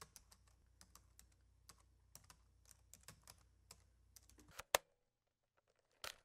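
Computer keyboard typing: quick, irregular, faint key clicks, with one louder click a little before five seconds in, a pause, and a couple more clicks near the end.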